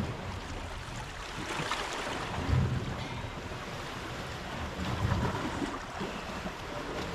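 Small sea waves washing against the shore, with wind buffeting the microphone in low gusts about two and a half and five seconds in.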